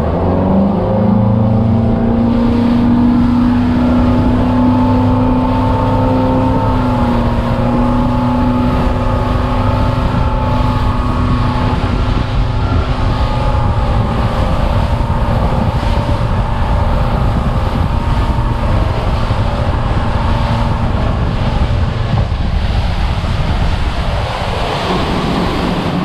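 Outboard motor on a center-console boat throttling up and running at speed, its engine note rising in the first second and then holding steady, with water rushing past the hull and wind buffeting the microphone. The engine note eases off near the end, leaving mostly wind and water.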